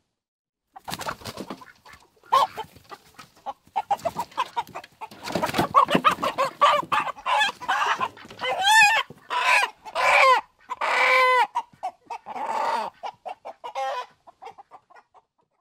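Chickens clucking in quick, irregular calls that start about a second in, with several longer drawn-out calls in the second half.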